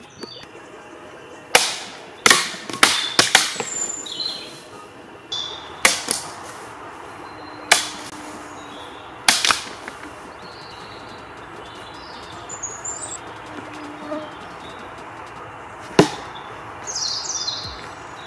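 Katana cuts: a series of about ten sharp swishing strikes, several coming in quick runs of two or three, the others singly, with birds chirping faintly in the background.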